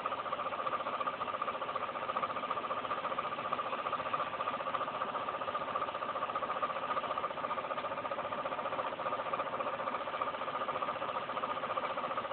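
National (Matsushita) FV-20WR-T window ventilation fan running with an abnormal noise: a steady, pitched whir with a fast flutter in it, unchanging throughout.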